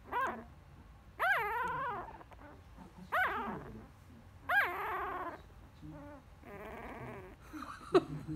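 Nine-day-old Labrador Retriever puppy crying in four short high squeals that rise and fall in pitch, then a longer, lower grumbling growl near the end, annoyed at being stroked. A single sharp click follows.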